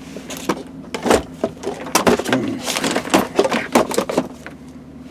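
A quick run of sharp clattering knocks and clicks, as of hard objects being handled, over the steady low hum of the 6.2 L V8 idling rough.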